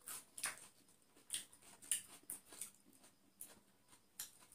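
Chewing and lip-smacking while eating chicken biryani by hand: soft, irregular wet clicks, a few a second.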